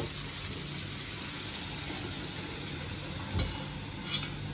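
Steady rushing of a multi-jet gas wok stove burner, with a low hum beneath. About three and a half seconds in come two short metal knocks as the wok of fried shrimp is tipped against a strainer pot.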